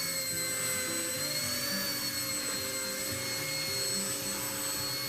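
Blade 70 S ultra-micro RC helicopter hovering, its brushed electric main and tail motors giving a steady high whine over a buzzing lower hum, the pitch wavering slightly as it holds position.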